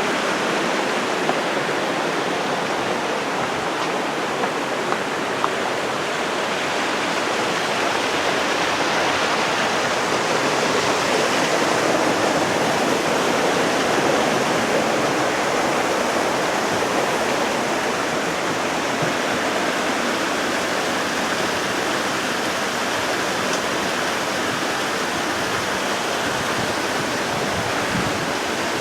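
Steady rush of the Gunnison River's water flowing below the dam, swelling slightly midway, with a few faint ticks in the first few seconds.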